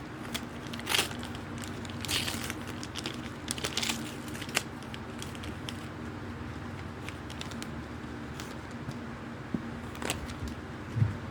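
Packaging crinkling and rustling in irregular bursts as an item is handled and opened, busiest in the first few seconds, with a few scattered clicks after.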